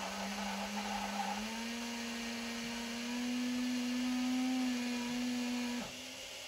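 Small electric motor on a model railway humming steadily. It steps up slightly in pitch about a second and a half in, then cuts off shortly before the end, leaving a fainter hum.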